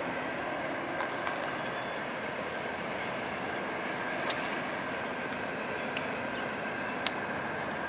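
Freight train approaching behind a diesel locomotive: a steady running noise with a few sharp clicks, the loudest about four seconds in and another near the end.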